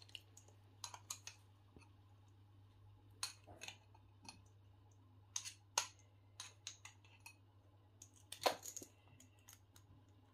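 Faint, scattered small clicks and light taps from a hand adding saffron threads to two clay tagines, over a low steady hum. The loudest tap comes about eight and a half seconds in.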